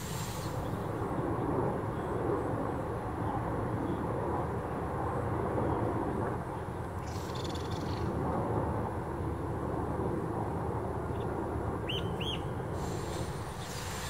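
Steady outdoor background rumble and hiss, with two short high chirps in quick succession near the end.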